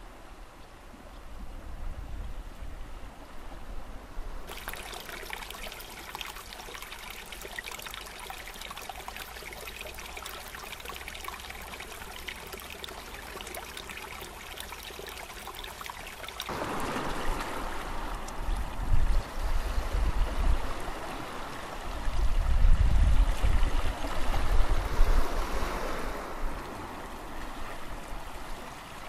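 Small stream running and trickling down a rocky channel, a steady rush of water. About halfway through the water gets louder and rougher, with deep low rumbles that are the loudest part.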